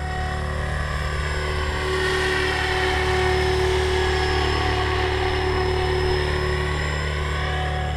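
Electric RC helicopter in flight, a steady rotor and motor whine whose pitch slowly rises and falls. The pilot finds that it vibrates too much and suspects the main rotor blades need tracking.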